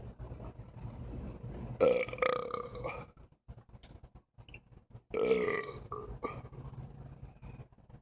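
Two drawn-out burps, the first about two seconds in and the second about five seconds in, each lasting about a second.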